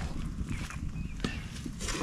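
Rustling and scattered light knocks from people shifting on dry leaf litter and loose soil, with the metal detector's coil sweeping over the ground; one sharper knock about a second and a quarter in.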